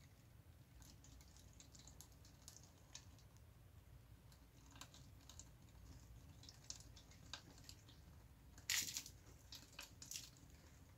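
Faint, scattered clicks and crackles of thin plastic bottles and their cling-film wrapping being handled as the joined bottles are lifted and tilted, with one louder crackle about three-quarters of the way through.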